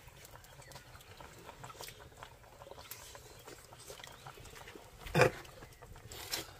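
People eating by hand: faint chewing, lip-smacking and handling of food, with one short, loud throaty grunt about five seconds in.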